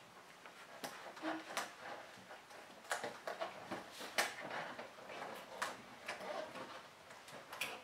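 Scattered light clicks and taps with faint rustling, from plastic kit parts and tape being handled.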